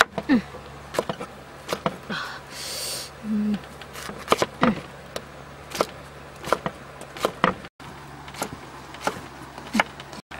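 A steel cleaver chopping pineapple on a wooden stump chopping block: sharp, unevenly spaced knocks of the blade through the fruit into the wood, about two a second.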